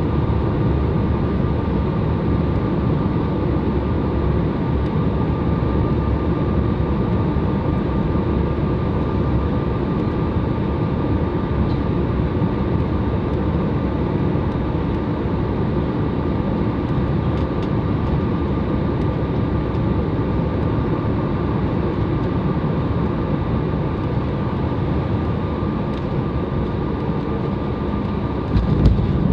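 Steady engine and airflow noise inside an airliner cabin during the approach to landing, with a faint steady tone above it. A short thump comes near the end.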